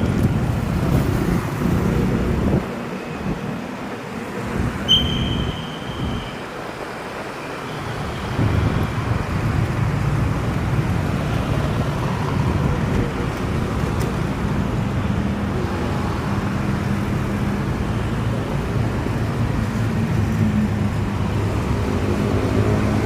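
Street traffic: vehicle engines running and passing in a steady low rumble, with a short high beep about five seconds in.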